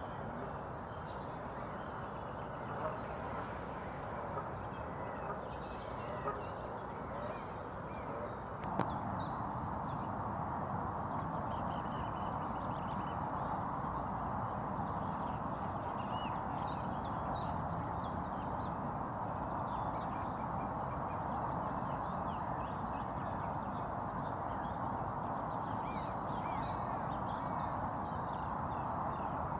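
Small birds chirping and singing in many short phrases over a steady rushing background. A single sharp click about nine seconds in, after which the background is slightly louder.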